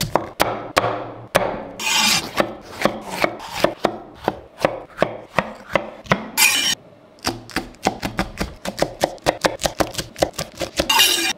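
Chef's knife chopping onion, green bell pepper and green chillies on a wooden cutting board: a steady run of crisp knife strikes against the board, speeding up to about four a second in the second half, with a few brief rasping strokes in between.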